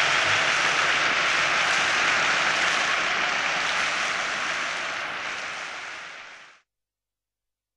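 Audience applause, a dense steady clapping that fades out gradually and stops about six and a half seconds in.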